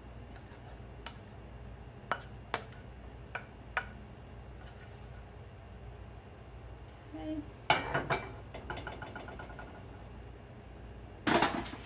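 Cookware sounds from serving eggs out of a nonstick skillet: a few sharp light clicks and taps of a utensil against the pan in the first few seconds, then a louder clatter about eight seconds in as the pan is set down on the gas stove's grate, and another clatter near the end. A low steady hum runs underneath.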